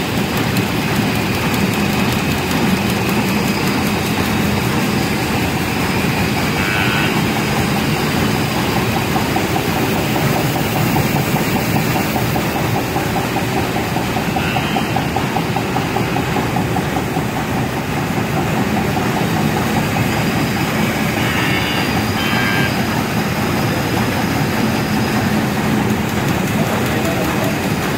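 Label die-cutting machine stamping labels at speed: a steady, fast rhythmic mechanical running with no pause.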